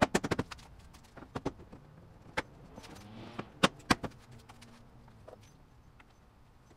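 Sharp clicks and clacks from hands working plastic trim, clips and wiring at the front of a car's engine bay: a quick cluster at the start, then a few single knocks, with a brief rustle about three seconds in.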